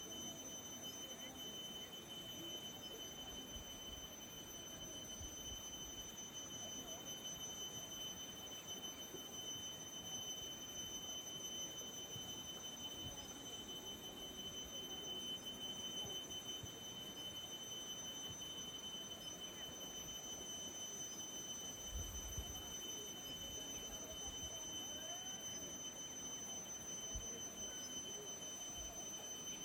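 Faint rural outdoor ambience under a steady, unchanging high-pitched whine with a fainter overtone above it. A brief low rumble comes about two-thirds of the way through.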